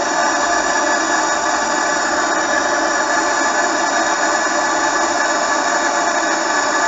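Gas torch burner running with a steady, even hiss while a fitting is heated in its flame for tinning with solder.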